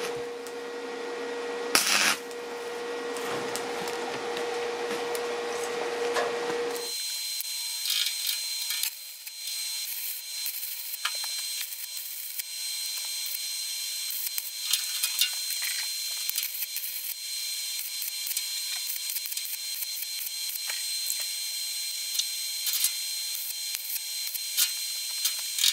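Welding arc on sheet steel crackling and sputtering irregularly, with a steady high whine. About seven seconds in, the lower hum and noise cut out abruptly and only the crackle is left.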